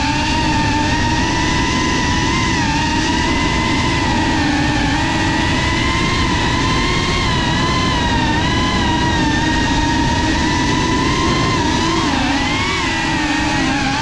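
Cinelog 35 cinewhoop's brushless motors and ducted propellers whining steadily, the pitch wavering up and down with throttle, with a sharper dip and rise near the end.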